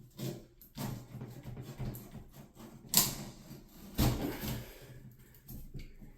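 Irregular clicks and knocks of hand work on old shower valve trim, with two sharper knocks about three and four seconds in.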